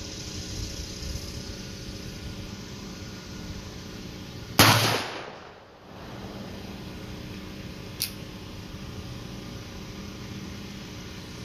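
A single shot from a Pietta 1860 Army .44 cap-and-ball black-powder revolver with an 8-inch barrel, loaded with 30 grains of Triple Seven powder under a round lead ball, about four and a half seconds in; the report dies away over about a second. A short sharp click comes a few seconds later, over a steady generator hum.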